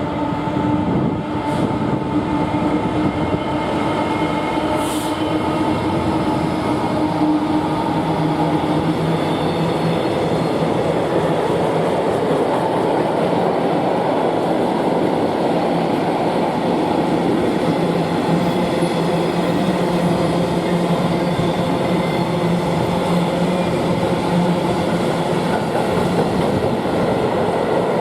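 Diesel-hauled freight train running past: a steady, loud rumble of wheels on rail, with some clickety-clack. Under it runs an engine drone that drops to a lower note about eight seconds in.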